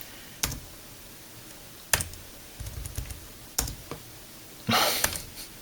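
Laptop keyboard keys pressed one at a time while navigating the BIOS setup menu: single clicks about a second apart, with a louder flurry of clatter near the end.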